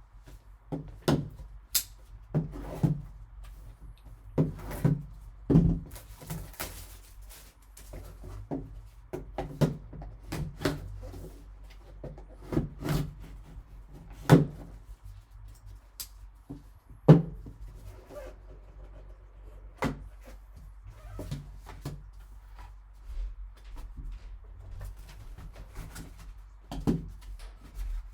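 Trading card box and its packs being handled and opened: irregular taps, knocks and rustles of cardboard and wrappers, with a few sharper thumps.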